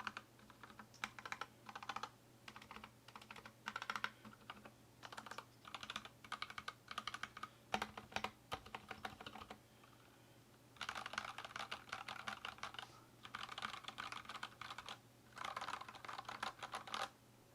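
Typing on an Anne Pro 2 mechanical keyboard with stock Gateron Red linear switches and re-lubed stabilizers: fast runs of keystrokes broken by short pauses, with three longer unbroken runs in the last six seconds before the typing stops.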